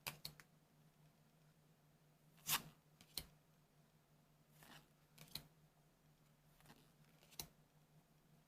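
Faint, scattered rustles and clicks of trading cards being handled and slid over one another, about seven short sounds with pauses between them, over a faint steady low hum.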